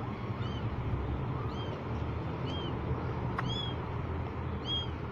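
Young kittens mewing: short, high-pitched cries that rise and fall, about one a second, over a steady low background rumble.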